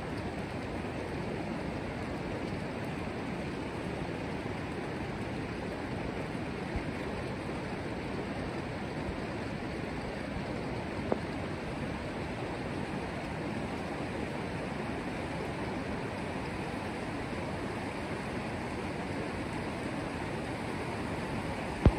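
Steady rushing of a fast mountain river, the Mzymta, flowing below the embankment railing. A few brief knocks stand out, the loudest just before the end.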